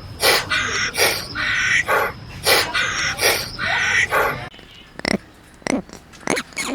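An animal's repeated noisy calls, evenly spaced at a little more than one a second. About four and a half seconds in they stop abruptly, giving way to a few short, sharp, quieter calls.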